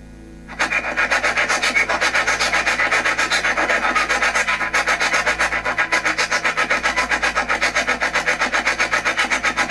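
SBox spirit box sweeping through radio frequencies: a fast, even chopping of static, about eight pulses a second. It comes in suddenly about half a second in.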